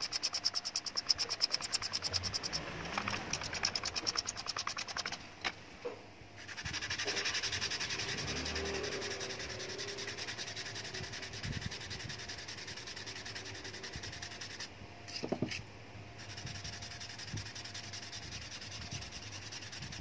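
Wooden handle of a Sardius table tennis blade being rubbed and sanded by hand. There are quick, even strokes for the first few seconds, then steady back-and-forth rubbing of the handle on a sandpaper block. The handle's stained lettering is being cleaned up.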